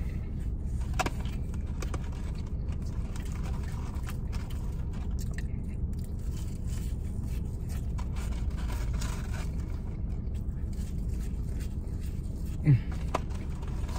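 Steady low hum of a car idling, heard from inside the cabin, with faint rustling of a paper fry carton and chewing. A short voiced murmur comes near the end.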